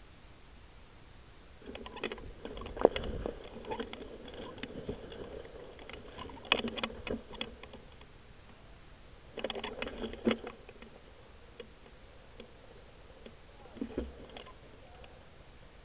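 Dry leaves and twigs crunching and rustling on the forest floor as the scoped airsoft rifle and its shooter move, in three bouts with a sharp snap about three seconds in.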